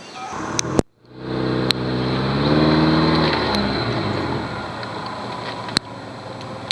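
First-generation Subaru Forester's flat-four engine revving under load, rising in pitch just after a brief dropout about a second in, holding, then easing off. A few sharp knocks stand out over the engine.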